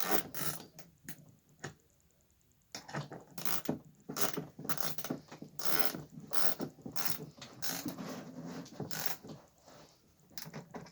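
Ratchet wrench with a 14 mm socket clicking in repeated runs as it tightens an axle nut. There is a short pause about two seconds in.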